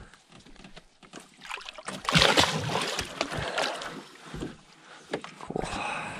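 Water splashing and sloshing as catfish in a mesh keep net are handled over the side of an aluminium boat. It is loudest for about a second and a half near the middle, with a few dull knocks.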